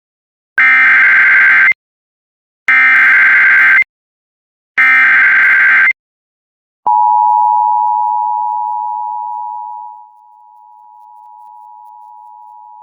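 Emergency Alert System flash flood warning opening: three one-second bursts of SAME header data tones, a digital warble, then the two-tone EAS attention signal. The attention signal starts loud, fades down over about three seconds and holds on as a quieter steady tone.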